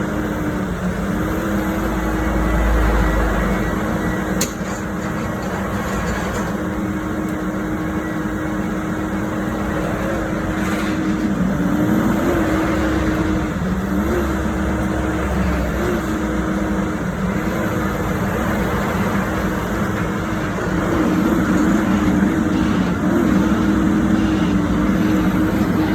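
Diesel engine of a Bauer BG 20 H rotary drilling rig running steadily, its note dipping and recovering briefly several times in the second half.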